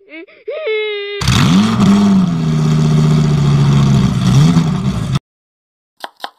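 The banana cat meme's crying wail, a wobbling high-pitched cry, ends about a second in. A loud engine sound effect follows: it revs up, runs steadily for about four seconds and cuts off suddenly.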